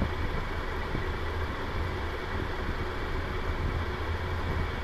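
A steady low hum, as of a motor running, even throughout with no distinct knocks or clicks.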